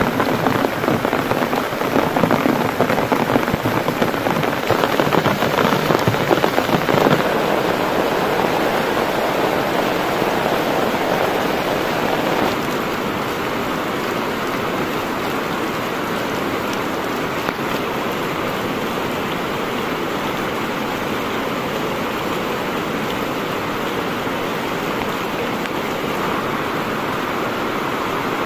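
Heavy rain pattering on a tarp overhead, dense and crackly, over the rush of a flooded river. About twelve seconds in it changes to a smoother, slightly quieter, steady hiss of rain and rushing water.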